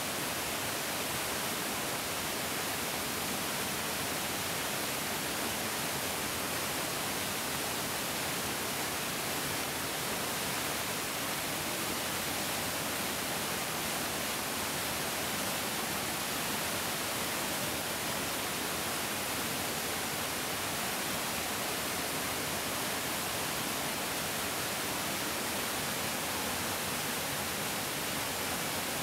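Mountain stream rushing steadily, an even, unbroken hiss of flowing water without distinct splashes or other sounds.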